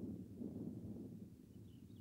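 Wind buffeting the microphone: an uneven, gusting low rumble. A faint high chirp is heard near the end.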